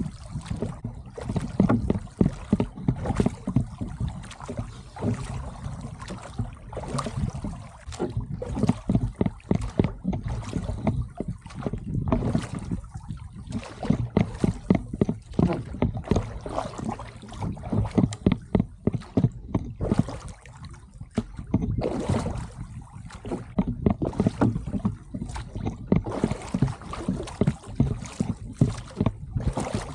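A small duck punt being rowed with a pair of wooden oars: repeated knocks of the oars working in their oarlocks and the splash of the blades with each stroke, over a steady low rumble.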